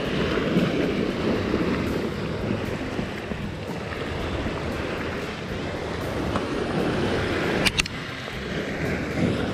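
Sea waves washing against the rocks, with wind on the microphone. A brief sharp click about eight seconds in.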